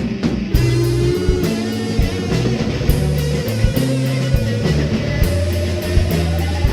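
Psychedelic rock band playing live, instrumental: after a drum fill the full band comes in about half a second in, with electric guitar, bass and drum kit, and a sustained guitar note slowly rising in pitch through the passage.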